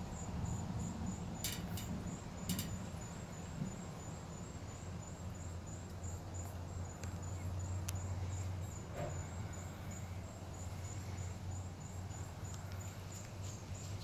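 A low, steady hum of unclear origin, heard as an eerie sound coming from the sky, with a faint high chirp repeating evenly all the while. A couple of sharp clicks come near the start.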